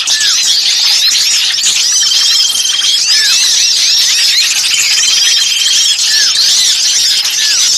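Dense, noisy chorus of many agitated small birds chirping and squeaking over each other, with a short buzzing trill recurring about every three seconds. It is a bird-lure recording of excited small songbirds, meant to draw in birds of all kinds.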